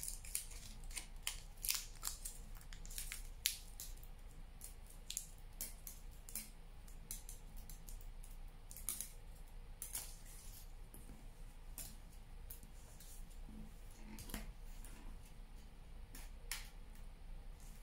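Aluminium foil crinkling and crackling as it is squeezed and twisted around a wire armature joint, an irregular string of sharp little crackles, thickest near the start.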